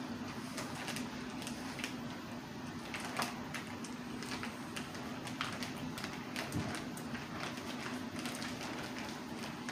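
Zip-top plastic bag crinkling and crackling in a run of irregular sharp clicks as it is squeezed and handled, over a steady low hum.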